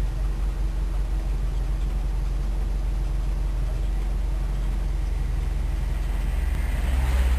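A vehicle's engine idling steadily, a low hum heard from inside the cabin, growing slightly louder near the end.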